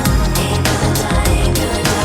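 Loud background music with a steady, fast beat and electronic sound.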